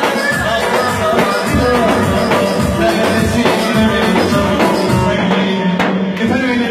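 Live amplified Turkish folk dance tune, a Devrek oyun havası, with clarinet over a steady beat and a man singing into a microphone.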